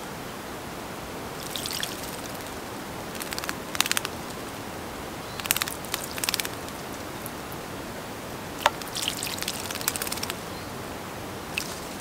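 A small songbird bathing in a shallow bowl of water: several short bursts of splashing as it flutters its wings in the water, over a steady hiss.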